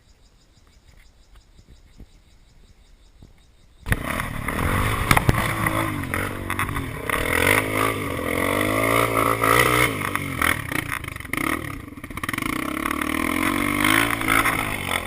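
Faint for about four seconds, then a trail motorcycle engine cuts in suddenly and runs loud, revving up and down again and again.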